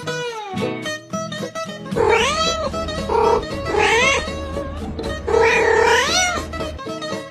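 Cat meowing and yowling, several drawn-out calls that rise and fall in pitch, over background music.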